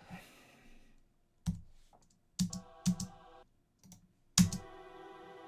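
Scattered clicks of a computer keyboard and mouse. A sustained synth pad chord sounds briefly halfway through, then starts and holds from a loud click near the end.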